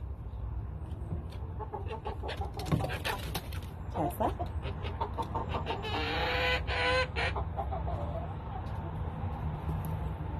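Chickens clucking, with one longer, louder call about six seconds in that lasts about a second.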